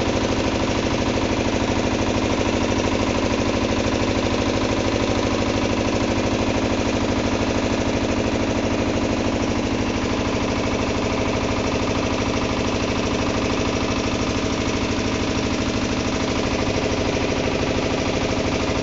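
Engine of a long wooden river boat running steadily under way, with a rapid, even beat and no change in speed.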